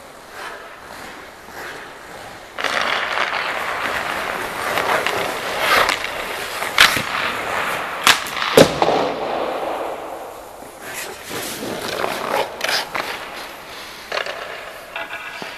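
Ice skate blades scraping and carving on the ice as a hockey goaltender in full pads moves about the crease, with several sharp knocks about halfway through. The scraping is loudest for several seconds after about three seconds in and eases off near the end.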